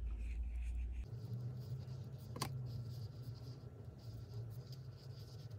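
Metal knitting needles ticking and scraping faintly as rib stitches are worked, with one sharper click about two and a half seconds in, over a low steady hum.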